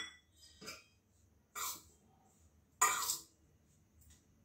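Steel spoon scraping around a steel bowl of dry ground peanut powder as it is stirred: a few short separate scrapes, the loudest about three seconds in.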